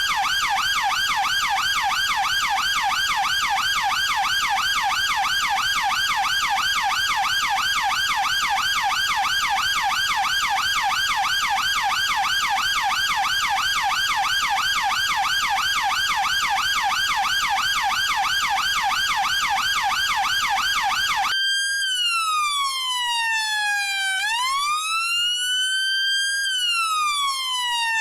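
UK police car siren sounding a fast yelp, rapid up-and-down sweeps in pitch. About 21 seconds in it switches abruptly to a slow wail that falls, rises and falls again over several seconds.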